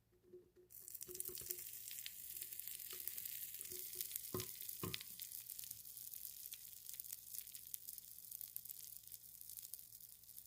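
Popping candy crackling and fizzing: a dense sizzle of tiny pops that starts about a second in and slowly thins out, with two louder clicks near the middle.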